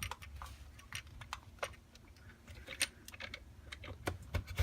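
Irregular light plastic clicks and taps: a new shifter knob being pushed down onto a Volvo S80's automatic gear selector lever.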